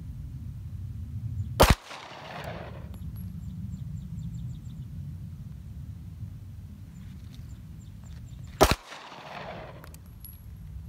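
Two single shots from a Benelli 9mm semi-automatic pistol, about seven seconds apart, each followed by a short echo that dies away.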